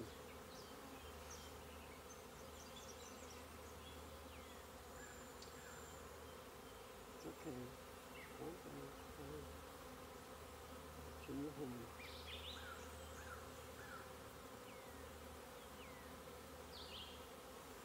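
Honeybee swarm humming steadily and faintly around the entrance of a new hive as the bees walk in after their queen, a calm, unagitated hum. A few short high chirps come and go over it.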